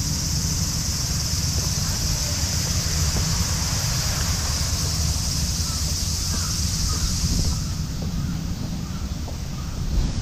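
A steady, high-pitched cicada chorus over wind rumbling on the microphone. The cicada sound drops away about seven and a half seconds in.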